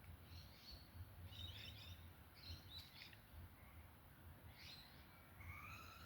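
Faint chirping of small birds in the background: several short clusters of high-pitched chirps, with a couple of brief gliding whistles near the end.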